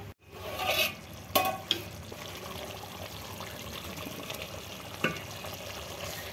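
Chicken yakhni curry bubbling in an aluminium pot on full flame while a spoon stirs through it, with a few short knocks of the spoon against the pot.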